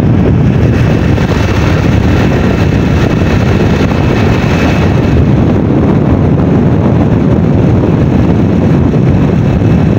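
Steady wind rush and rumble on the microphone from riding on a moving motorcycle, with the road and engine noise under it.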